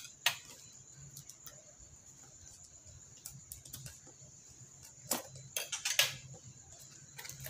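Cardboard box being handled and its flaps opened: scattered soft scrapes and taps of cardboard, with a few louder ones about five to six seconds in.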